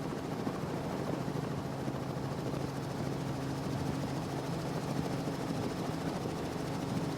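Quad Mercury Racing outboards on a Deep Impact 399 powerboat running hard at a steady speed: an even engine drone with a rush of wind and water over it.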